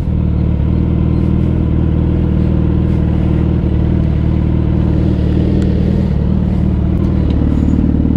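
Suzuki Hayabusa's inline-four engine running steadily at low revs while the bike rolls slowly.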